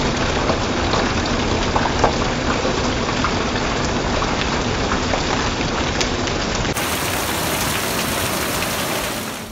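Rain falling steadily: a dense, even hiss with scattered sharp ticks of single drops.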